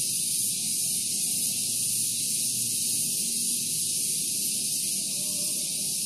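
Steady high-pitched hiss over a faint low rumble, unchanging throughout.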